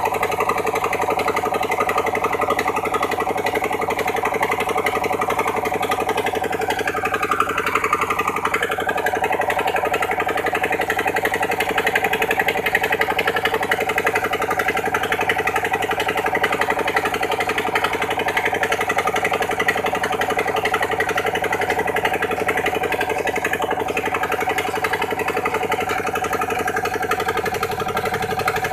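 Engine of a sand-suction pump machine running steadily at a constant speed. A higher tone dips and comes back up briefly about seven to nine seconds in.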